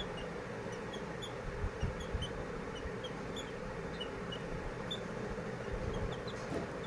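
Birds chirping: short, high chirps repeating about two or three times a second, over a steady low hum.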